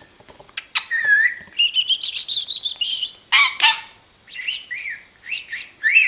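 Budgerigar chattering: a long run of warbling chirps, a louder harsh call about halfway through, then short chirps that rise and fall.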